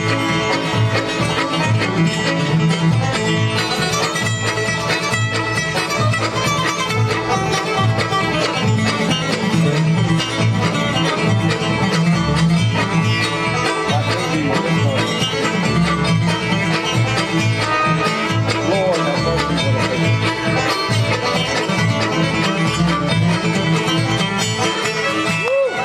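Live bluegrass band playing an instrumental stretch, banjo rolls to the fore with guitar and fiddle, over a steady, evenly pulsing bass beat.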